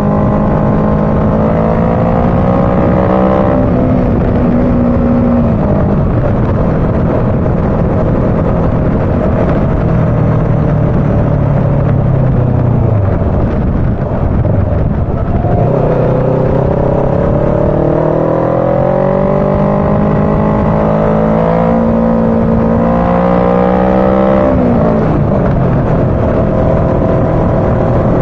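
Motorcycle engine under way with wind rushing over the microphone. Its pitch climbs, drops at a gear change, sinks as the bike slows about halfway, then climbs steadily for several seconds to another gear change near the end.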